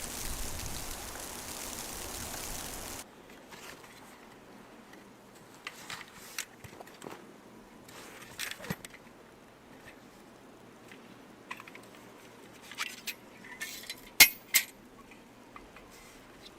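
Steady storm wind for about three seconds, cutting off abruptly to quiet handling sounds: scattered small clicks and knocks, then two sharp, loud clinks close together near the end.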